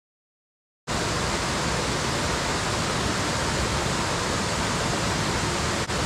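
Steady rush of falling water from a waterfall, cutting in abruptly after total silence about a second in, with a brief dip near the end.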